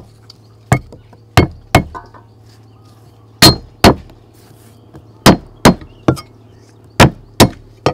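Cleaver chopping through a root onto a thick wooden chopping block: about ten sharp knocks at an uneven pace, often in quick pairs.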